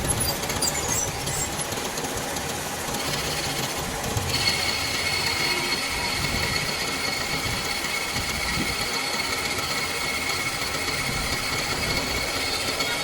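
Metal lathe running with a steady mechanical rumble; about four seconds in a steady high-pitched whine joins and holds.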